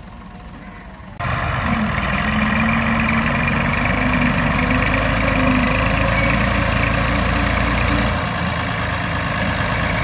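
Farm tractor's diesel engine running steadily while pulling a plough across the field, coming in suddenly about a second in.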